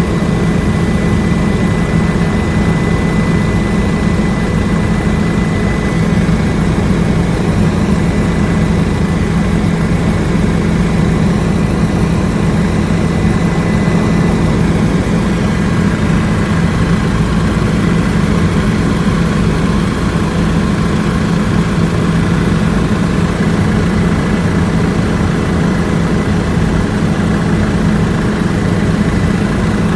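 Light aircraft's engine and propeller running steadily, heard from aboard: a loud, unbroken low drone with a faint thin whine.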